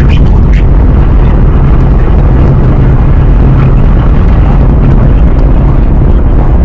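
Atlas V rocket in ascent, its RD-180 first-stage engine heard from the ground as a loud, steady, deep rumble.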